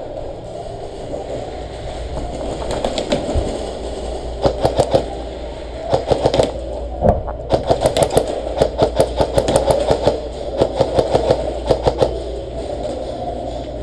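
Airsoft guns firing: sharp pops in quick strings, a few shots at first, then dense volleys through most of the second half, over a steady rushing noise.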